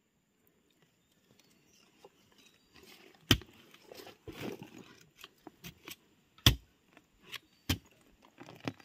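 Metal digging rod worked into stony soil: soft scraping of earth and dry leaves with a scatter of sharp knocks, three of them louder, after a quiet start.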